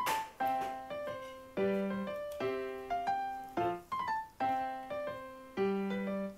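Background piano music: a gentle melody of struck notes and chords, each fading after it is played. A brief noise burst sounds right at the start.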